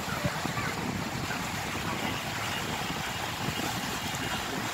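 Open river-cruise boat under way: a steady rush of water along the hull mixed with boat noise and wind on the microphone.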